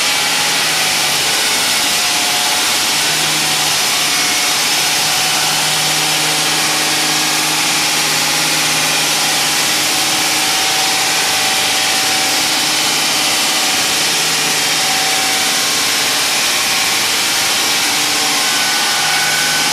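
Diamond wall saw cutting concrete: a steady motor hum under a loud, even grinding hiss from the blade, with no break.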